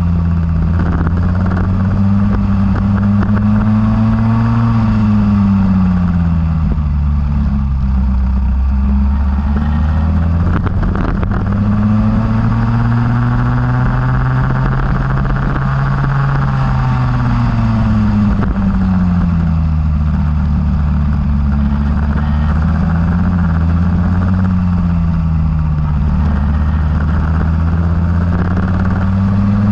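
Go-kart engine running hard and close, its pitch dropping and climbing again in slow sweeps about three times as the revs fall and rise.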